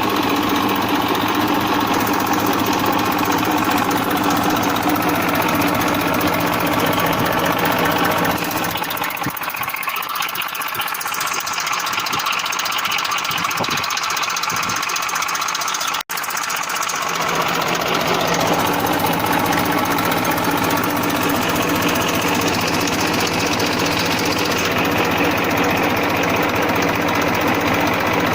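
1994 Massey Ferguson 1035 DI tractor's three-cylinder diesel engine idling with a steady hum. From about nine seconds in the sound thins, losing its low end, with a momentary cut-out near sixteen seconds, then returns full.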